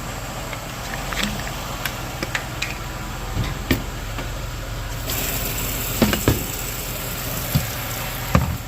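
Water running into a bottle as it is filled, a hiss that starts about five seconds in, with a few clicks and knocks from handling the bottle. Under it, the van's engine idles steadily.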